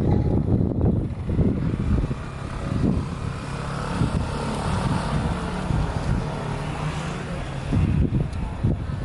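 Aerial fireworks shells bursting in a string of low booms, with a hissing haze through the middle few seconds.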